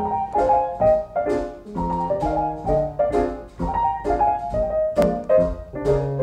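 Background music: a piano playing chords to a steady beat.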